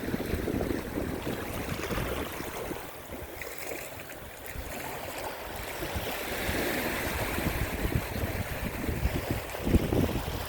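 Sea waves washing onto a beach, easing off a few seconds in and then swelling again as the next wave comes in, with wind rumbling on the microphone.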